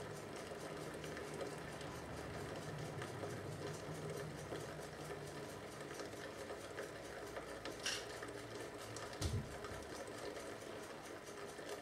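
Coconut with mains electrodes inside it heating and boiling its own water under about 2 bar of pressure: a steady hissing, bubbling sound over a low electrical buzz, with a sharp click near 8 seconds in and a low thump just after 9 seconds.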